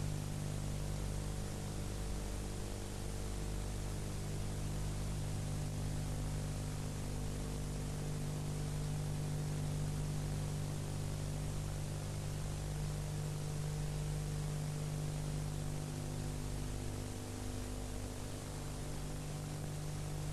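Steady hiss with a low electrical hum under it, unchanging throughout: the background noise of an old film soundtrack, with no speech or music.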